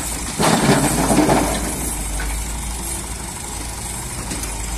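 Volvo EW145B wheeled excavator's diesel engine running steadily while a bucketload of earth and stones tips into a tractor trolley's metal bed, clattering loudly for about a second near the start.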